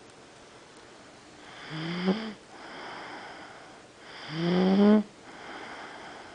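An animal snoring with a nasal, whiny tone, two snores about two and a half seconds apart. Each snore is a loud, slightly rising in-breath followed by a softer breathy exhale.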